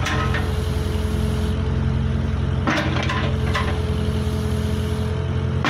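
Case Super K backhoe's diesel engine idling steadily, with a few short knocks about halfway through.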